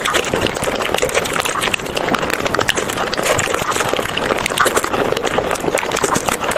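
Close-miked wet chewing and mouth smacking of a person eating, an unbroken stream of small clicks and squelches.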